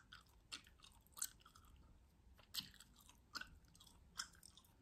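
Chewing gum being chewed close to the microphone: quiet, irregular clicks and smacks, several a second at times.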